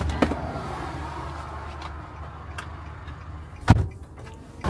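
Low steady rumble of a car heard from inside the cabin, with a few scattered light clicks and one sharp knock a little after three and a half seconds in.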